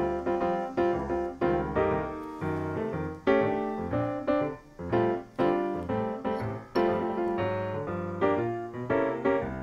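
Background music: piano playing a quick run of notes.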